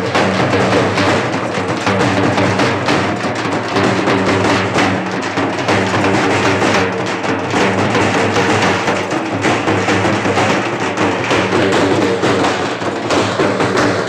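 Halgi frame drums beaten with sticks in a dense, unbroken rhythm.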